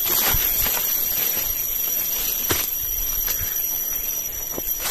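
A steady, high-pitched shrill drone of forest insects, with footsteps crunching through dry leaf litter now and then.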